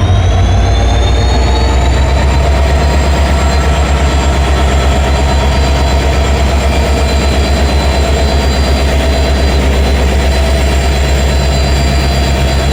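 WDP4D diesel locomotive's turbocharged 16-cylinder EMD 710 two-stroke engine running with a deep, powerful hum and an even, pulsing throb. A high whine rises in pitch and levels off about two seconds in.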